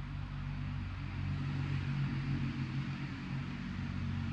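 Steady low mechanical hum with an even hiss above it.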